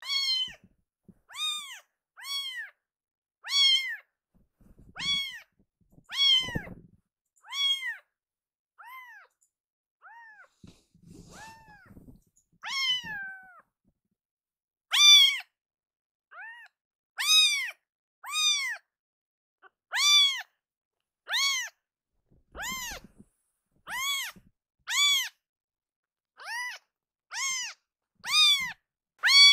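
Young kitten meowing loudly and over and over, high-pitched cries that each rise and fall, about one every second or second and a half; softer for a few seconds in the middle, then loud again.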